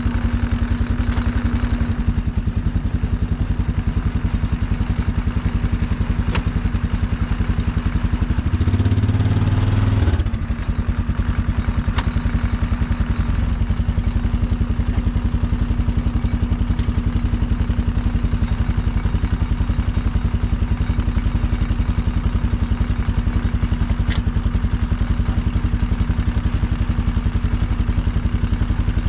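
Engine of a heavy machine running steadily with an even pulse, louder and deeper for about two seconds around nine seconds in.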